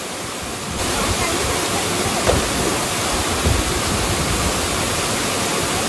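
Small waterfall rushing steadily, a dense water roar that grows louder about a second in.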